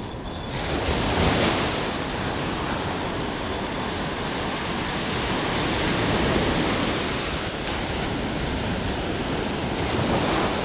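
Ocean surf breaking and washing up the beach in a steady rush, swelling about a second in, again midway, and near the end as waves come in.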